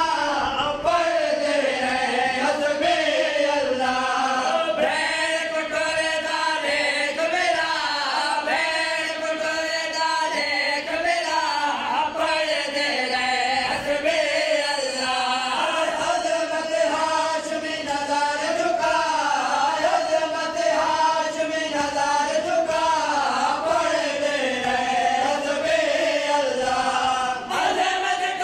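Men chanting a noha, a Shia Muharram lament, with a lead voice and group sustaining a continuous, gliding melody. Faint chest-beating strikes of matam keep time beneath it.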